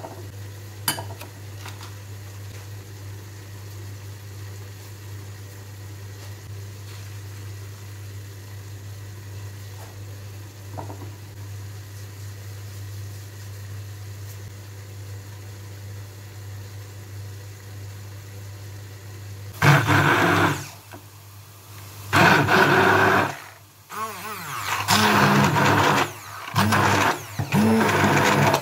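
A steady low hum with a couple of faint clicks, then, about twenty seconds in, a hand-held immersion blender run in five short bursts with pauses between them. It is blending ricotta, grated Parmesan and basil in a glass bowl into a cream.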